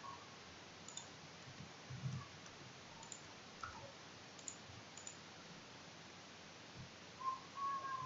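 Faint, scattered clicks of a computer mouse and keyboard as the search is run in desktop software.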